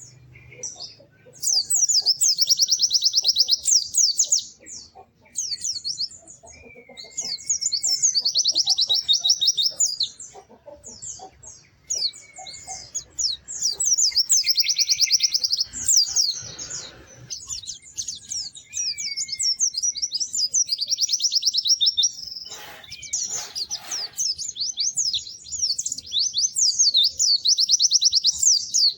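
Pleci (white-eye) singing: rapid, high-pitched chattering trills in phrases of two to three seconds with short pauses between, now and then a slurred lower whistle.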